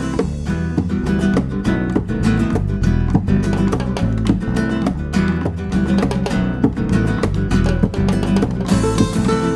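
Background music: fast plucked acoustic guitar, flamenco-style, with quick strummed and picked notes.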